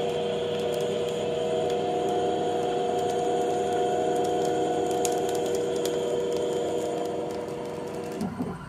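Denford Novaturn CNC lathe turning a metal bar: the spindle and cut make a steady whine with several fixed tones and scattered faint ticks. Near the end the whine drops away as the tool pulls back from the work.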